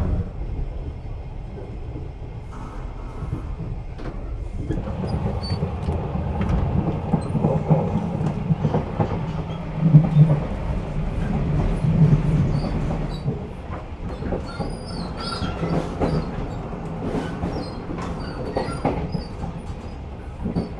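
Running noise inside a moving Twilight Express 24-series sleeper car: a steady low rumble with the clatter of wheels over rail joints. It grows louder about five seconds in and is loudest around ten seconds in, with a few short high squeaks later on.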